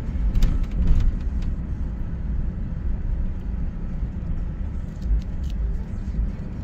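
Car driving on a paved road: a steady low rumble of tyres and engine, with a few light clicks about half a second to a second and a half in and again around five seconds.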